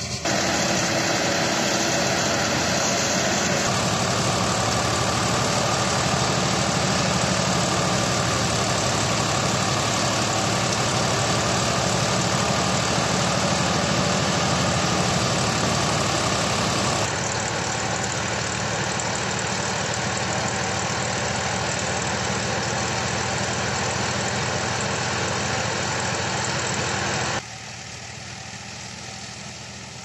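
Tractor engine driving a wheat thresher through its shaft, both running steadily. The sound changes abruptly about halfway through and drops much quieter near the end.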